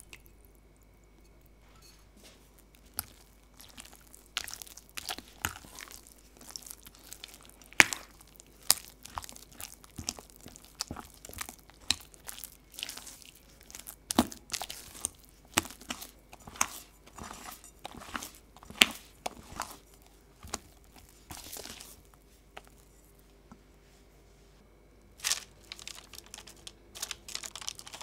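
Spatula stirring and folding thick butter cake batter with lemon juice in a glass bowl: irregular sticky squelches and scrapes, with sharper clicks of the spatula against the glass. It stops for a few seconds near the end, then starts again.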